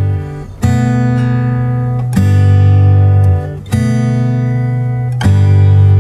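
Background music: an acoustic guitar strumming ringing chords, a new chord struck about every one and a half seconds.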